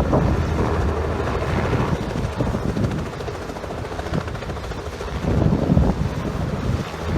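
Helicopter taking off: rotor and engine noise mixed with gusting wind on the microphone, dipping slightly in the middle and swelling again near the end.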